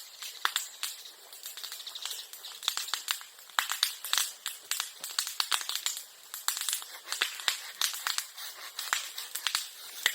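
Bonfire of bamboo and bamboo grass crackling, with many sharp, irregular pops and snaps.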